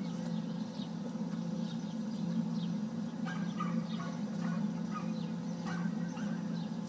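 Birds chirping: many short, quick downward-sweeping chirps, scattered and irregular, over a steady low hum.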